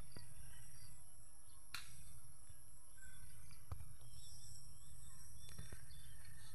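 Outdoor field ambience: a steady high-pitched insect drone over a low rumble on the microphone, with a few faint sharp clicks.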